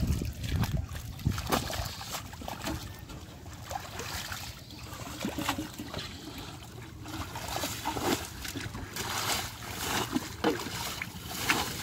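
Irregular splashing and sloshing of shallow muddy water as an aluminium basin is scooped through it, with wading steps and stranded fish thrashing in the mud.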